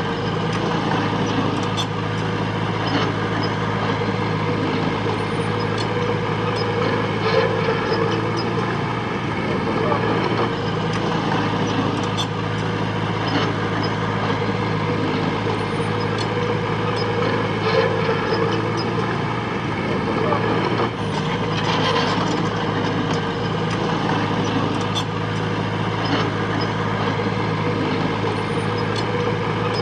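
Heavy machine's diesel engine running steadily under load, with scattered short clanks and knocks.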